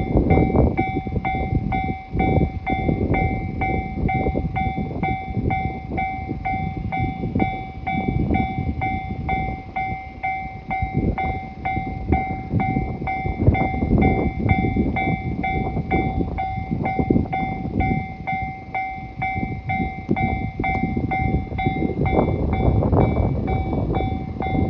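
Japanese level-crossing warning bell ringing steadily at about two strikes a second, over the loud rumble of the E653 series electric train passing through the crossing.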